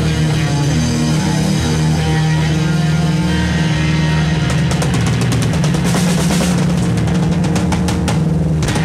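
Live rock music: an electric guitar, a Stratocaster-style guitar, playing sustained notes over drums. About halfway through, the drums break into rapid cymbal and snare hits that stop shortly before the end.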